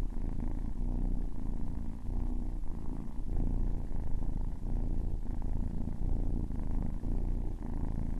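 Cat purring steadily, a low continuous rumble that swells and eases in slow regular cycles with its breathing.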